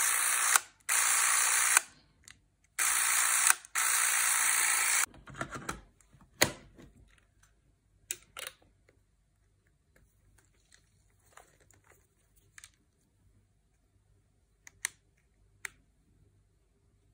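Beaulieu 4008 ZM4 Super 8 film camera's motor running in four short steady bursts of about a second each, stopping and restarting. A sharp click follows, then light clicks and handling of the camera body.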